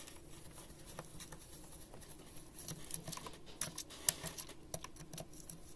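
A screwdriver turning a small Phillips screw out of a steam iron's plastic housing: faint, irregular clicks and scratches of the bit working in the screw, with one sharper click about four seconds in.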